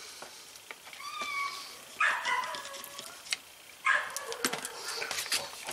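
An animal calling: three drawn-out cries that bend in pitch, the loudest about two seconds in and falling away at its end, over light clinks of metal parts being handled.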